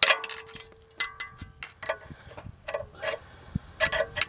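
Metal hand tools clinking against engine metal: a string of sharp, ringing clinks at irregular intervals, some in quick pairs.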